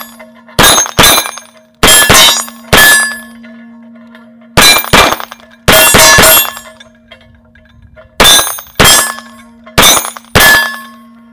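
Glock 17 MOS 9mm pistol firing about thirteen shots, mostly in quick pairs about half a second apart, with short pauses between the pairs. A steady ringing tone carries on under and between the shots, typical of a steel gong target.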